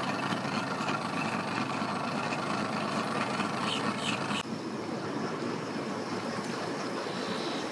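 An engine running steadily, with a sudden drop in level about four seconds in, after which it continues a little quieter.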